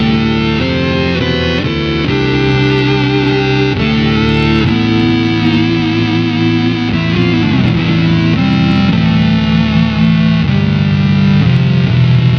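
Electric guitar played through an EarthQuaker Devices Data Corrupter PLL synth/harmonizer pedal, followed by a Dispatch Master delay and reverb pedal, giving thick synth-like harmonies. A run of notes changes every half second to a second, then a long held note wavers and slides in pitch about seven to eight seconds in before the notes settle again.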